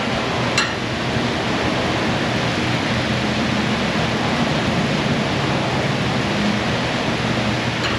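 Steady, even rushing noise with a faint low hum, like air from a fan or blower, and a single light click about half a second in.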